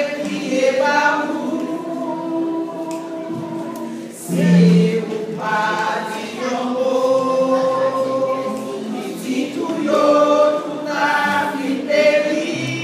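A women's choir singing together, several voices in long held notes.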